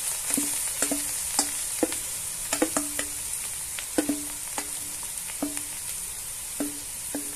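Butter and olive oil sizzling in a pot as pressed potato is scraped into it from a metal bowl. A dozen or so irregular light knocks, each with a short low ring, come from the utensil and bowl striking the pot.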